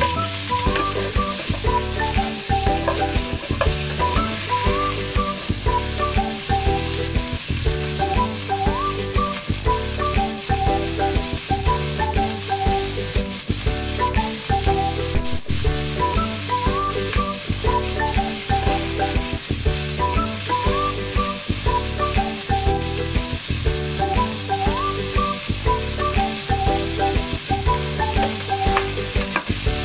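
Pork belly with garlic, onion and ginger frying in oil in a pot, sizzling steadily, with a metal spoon stirring it now and then. A repeating tune with a steady beat plays underneath.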